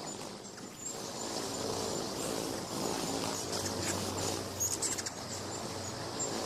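Hovering hummingbirds' wings giving a steady low hum, with several short, high chirps from the birds.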